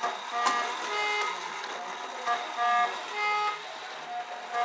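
Black Forest trumpeter clock sounding its trumpet call: reed horns blown by bellows play a tune of short held notes at changing pitches. There is a sharp click about half a second in.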